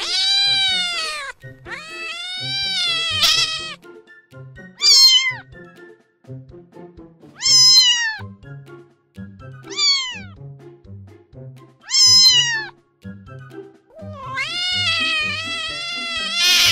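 Domestic cats meowing, about seven separate meows. Some are long and drawn-out, others short with a falling pitch, the last one long and loud near the end. Soft background music plays underneath.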